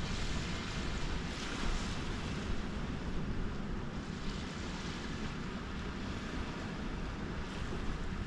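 Wind noise on the microphone over a steady wash of surf on the shore.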